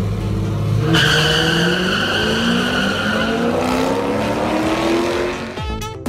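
A drag-racing car's engine idling at the starting line, then launching about a second in, its pitch climbing steadily as it accelerates down the strip.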